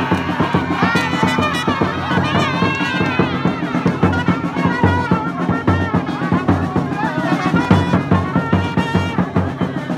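Live street brass band: trumpets playing a tune over a steady bass-drum beat.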